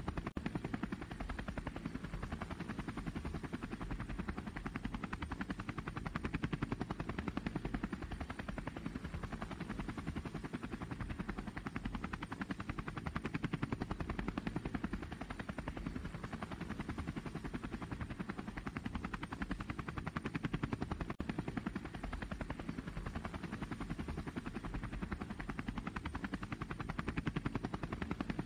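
DJI Phantom quadcopter's motors and propellers running steadily in flight, a continuous low, fluttering drone sound.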